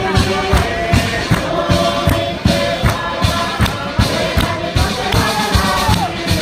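Tuvaluan fatele: a large group singing loudly together in unison, over a driving beat on a wooden box struck by hand at about three beats a second.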